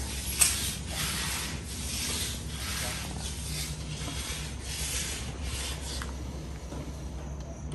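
Concrete finisher's hand tool scraping and rubbing across wet concrete in repeated strokes, about two a second, easing off near the end. One sharp knock about half a second in is the loudest sound.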